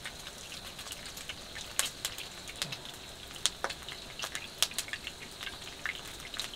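Pork belly sizzling on a grill pan, with fat spitting in irregular sharp pops over a steady hiss.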